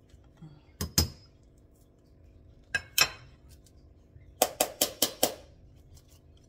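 A metal spoon clinking against a stone mortar and a plastic measuring cup as mashed banana is scraped and tapped off it. There are two pairs of sharp clinks, then a run of five quick taps about four and a half seconds in.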